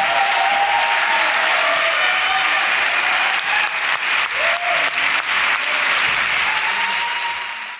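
Theatre audience applauding steadily after an acceptance speech, the clapping fading out near the end.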